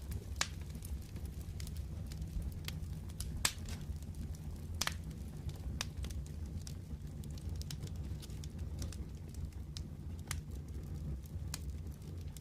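Wood fire in a fireplace crackling, with irregular sharp pops over a steady low rumble of the flames.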